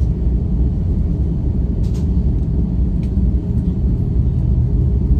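Steady low rumble inside the cabin of an Airbus A330 airliner taxiing, from its engines and rolling wheels, with a faint click or two.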